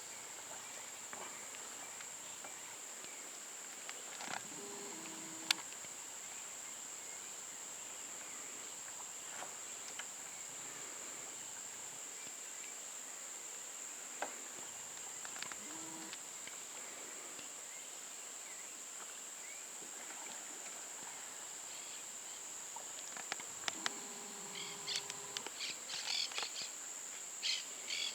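Steady, high-pitched drone of insects, cricket- or cicada-like, running without a break. Scattered clicks and knocks sound over it, most of them in a cluster near the end.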